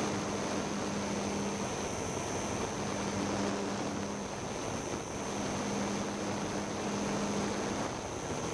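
Motor and propeller hum of a radio-controlled model aircraft, picked up by its onboard camera over a steady rush of wind, with a thin high whine throughout. The low hum drops away briefly twice, around two and five seconds in, then returns.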